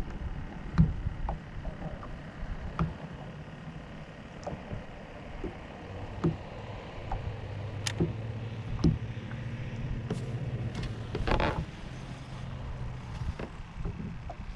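Sounds aboard a small fishing boat: scattered knocks and clicks, with a low steady hum setting in about halfway through.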